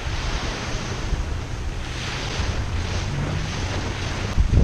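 Small surf breaking along a sandy shore, with wind buffeting the microphone in low rumbles that grow stronger near the end.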